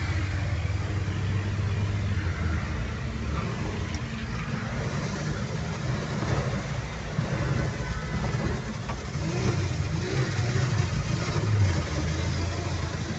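Car engine running with a low, steady rumble, heard from inside the car.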